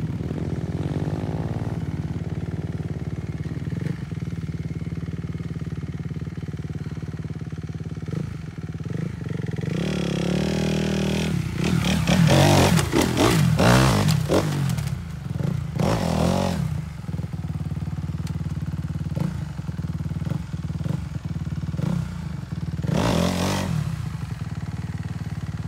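Kawasaki KLX110 pit bike's small four-stroke single running steadily, then revving with a rising pitch about ten seconds in and several hard bursts of throttle while hopping logs, with one more burst near the end.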